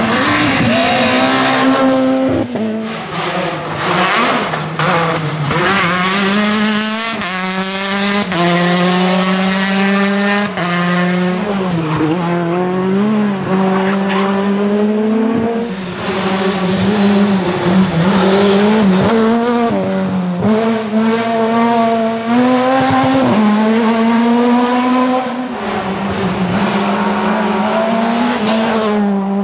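Rally cars, among them a Peugeot 207 and a Škoda Fabia, passing one after another at full throttle. The engines rev hard, and their pitch climbs through each gear and drops at every upshift. The sound breaks off abruptly a few times as one car gives way to the next.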